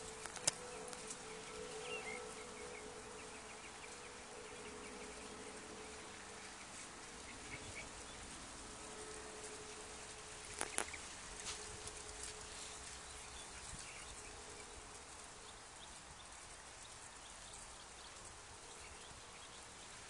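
A flying insect buzzing in a faint, wavering hum that fades away about three quarters of the way through. Two sharp clicks, the loudest sounds, come just after the start and about halfway.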